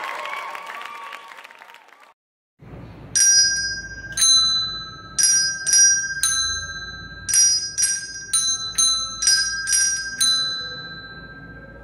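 Two handbells rung in turn, playing a short two-note so–mi tune of about a dozen strokes starting about three seconds in, each note ringing on after the stroke. Before that, a crowd-cheering effect fades out over the first two seconds.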